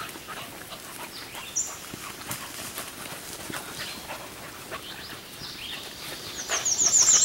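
Beagle moving and nosing through brush and dry leaves on a cold hare track: scattered rustles and light footfalls, with a quick high rattling trill near the end.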